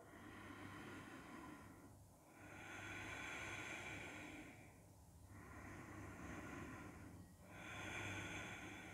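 A woman breathing slowly and faintly through her nose, relaxed: four long, soft breaths, each swelling and fading over about two seconds.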